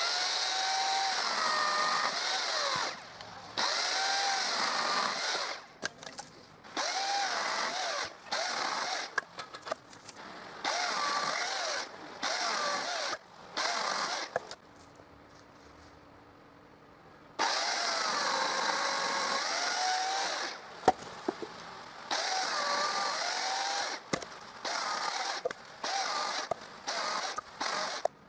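Chainsaw in a cutting jig running in repeated short bursts of a second or two, cutting branches laid on the chain. Its pitch wavers and dips within each burst as the chain bites into the wood, and it stops sharply between cuts, with a longer pause of about three seconds midway.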